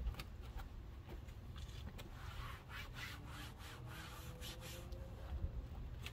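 Palms rubbing and smoothing new headliner fabric down onto a headliner board coated with contact adhesive, a run of short brushing strokes strongest from about a second and a half in. The fabric is being massaged outward from the center to press the air out of the contours as the glue tacks.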